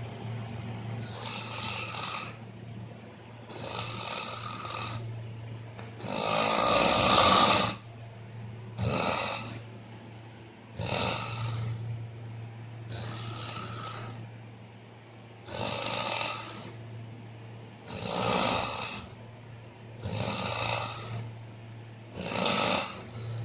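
A person snoring loudly, with one rasping snore on each breath about every two seconds; the snore a little after a quarter of the way in is the loudest. A steady low hum runs underneath.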